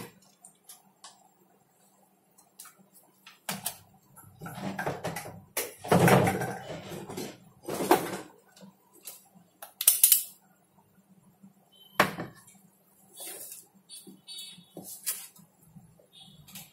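Scattered knocks, clatter and rustling as tools and objects are handled on a workbench and a handheld digital multimeter is fetched and set down, over a faint steady hum.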